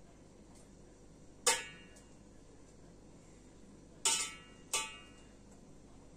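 A spoon clinking sharply against dishes three times with a short ring, as tomato sauce is scooped from a bowl and spread onto pizza dough in a pan; the second and third clinks come close together.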